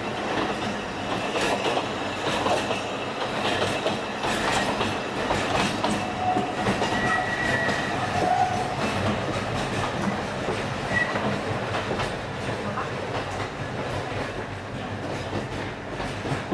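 Alishan Forest Railway narrow-gauge train running, its wheels clacking over the rail joints, with a faint wheel squeal about seven seconds in.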